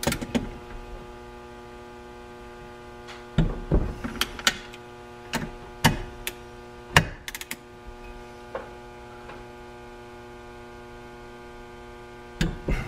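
Click-type torque wrench ratcheting and clicking as crankcase bolts are tightened to 25 foot-pounds on an Arctic Cat 800 snowmobile engine: about ten sharp metallic clicks, scattered and starting about three seconds in. A steady electrical mains hum runs underneath.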